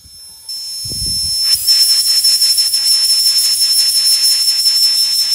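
Compressed air hissing into a car tire through the compressor hose at its valve, with a high steady whistle and a fast, even pulsing, starting about a second and a half in.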